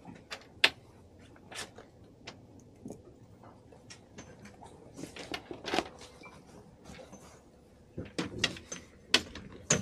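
Scattered clicks and knocks of gear being handled on a boat's deck, with a busier run of knocks about five seconds in and a cluster of sharper knocks near the end.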